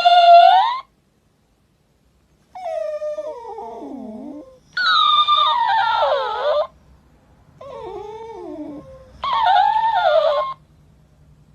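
A dog howling and whining in a series of drawn-out, wavering calls that slide up and down in pitch. Louder, higher calls alternate with quieter, lower ones, with short pauses between them.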